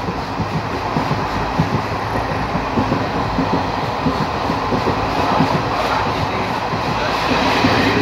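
Passenger train running along the track, heard from inside the coach through an open window: a steady running noise with irregular knocking and rattling of the wheels.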